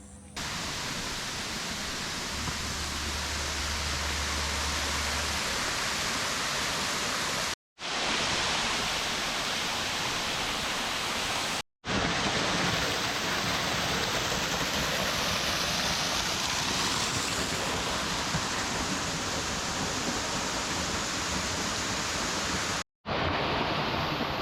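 Steady rushing of water, an even hiss with no distinct drops or rhythm, broken by three brief dropouts to silence.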